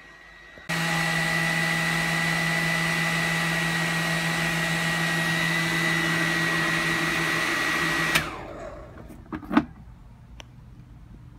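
Salon hood dryer on a stand, switched on about a second in and running steadily with a high tone over the rush of blown air, drying a wet wig. It is switched off near the end and winds down with a falling pitch, followed by a short sharp knock.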